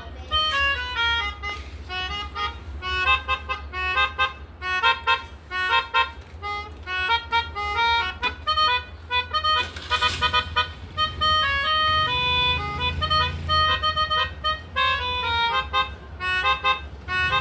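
Pianika (melodica) reeds rigged as a bicycle telolet horn, playing quick runs of short reedy notes in tumbling tunes, over a steady low hum.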